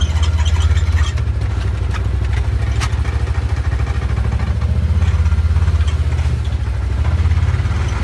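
Can-Am side-by-side engine running steadily with a deep low hum, heard from inside the cab, with a sharp click about three seconds in.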